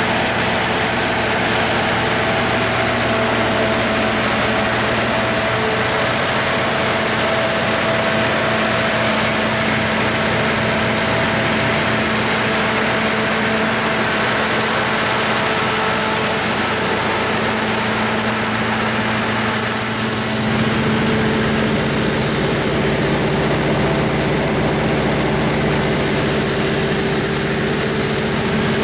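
Cummins NTA-855-G3 turbocharged inline-six diesel engine of a 350 kW standby generator set running steadily at constant speed, a loud even drone with a steady hum and whine. Its low tones shift slightly about two-thirds of the way through.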